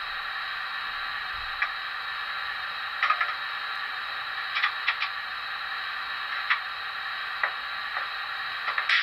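Broadway Limited Paragon 4 sound decoder in a model EMD GP35 playing its extended startup sequence through the locomotive's small speaker. It gives a steady hiss with scattered clicks and clanks, the recorded sounds of the engineer working the doors and compartments and poking around the locomotive.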